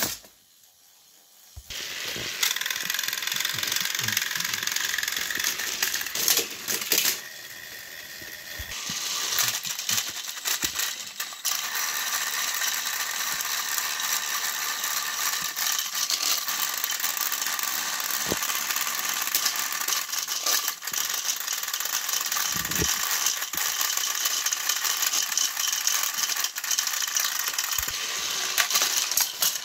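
Battery-powered Thomas & Friends toy train engines running, their small motors and plastic gears making a steady rattling whir as they push against each other on plastic track, starting about two seconds in, with scattered clicks and knocks.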